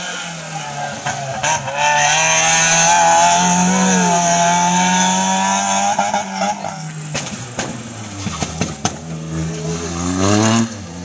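Small hatchback race car's engine revving hard, its pitch climbing as it accelerates, easing off through the middle, then climbing again near the end before dropping away.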